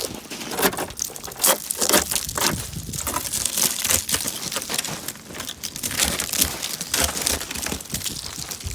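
Ice scraper scraping and cracking a crust of freezing-rain ice off a car window, in quick, irregular crunching strokes.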